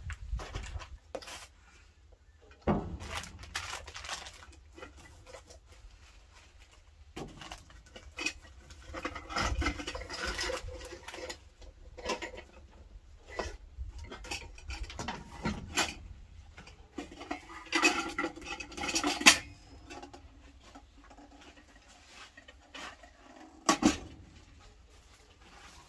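Metal pots, bowls, lids and utensils clattering and clinking as they are unpacked from a basket and set down on wooden boards, in scattered knocks. The loudest clatter comes about two-thirds in, with one more sharp knock near the end.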